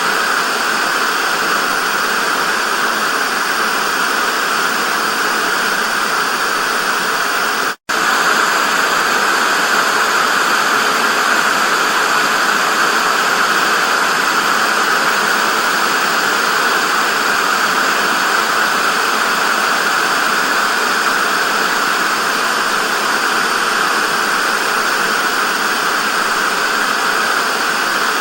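TV static: a steady, even hiss of white noise, strongest in the upper-middle range. It cuts out for a split second about eight seconds in, then carries on unchanged.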